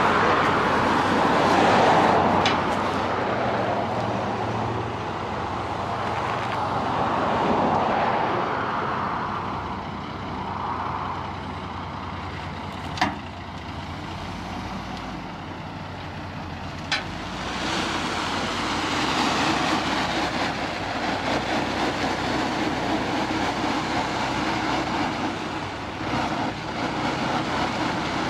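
Truck engines running as a 5-ton wrecker slowly tows a U-Haul box truck on a rope along the gravel road edge, with highway traffic swelling past several times. There are two sharp clicks, about halfway through and again a few seconds later.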